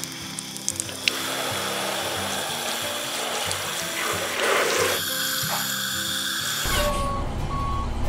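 A spray of water pouring and splashing onto a plastic toy garbage truck, over background music. About seven seconds in the splashing stops and a steady beeping starts with the music.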